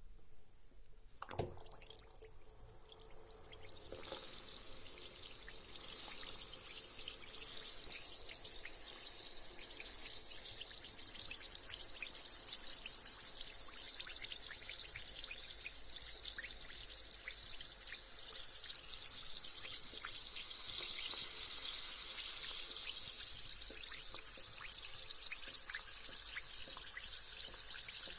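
A carbonated bath bomb plops into bath water about a second in, then fizzes as it dissolves: a steady high hiss of bubbles with tiny crackles, building over the next few seconds and holding.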